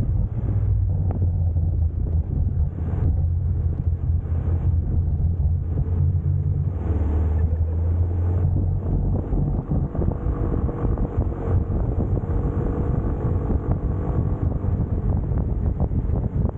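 Wind buffeting the camera microphone on a moving motor scooter, over a steady low rumble from the ride. The heavy low rumble eases about halfway through.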